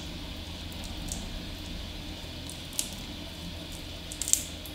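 Sticky glittery kit slime being kneaded and stretched by hand: a few short wet squelches and sticky pops, the loudest cluster near the end. The slime is still very sticky and has not set.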